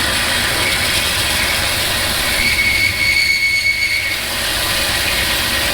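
Angle grinder with a wire wheel running against steel pipe, scouring rust off the ends to prepare them for welding. A high whine rides over the steady scraping noise for a couple of seconds in the middle.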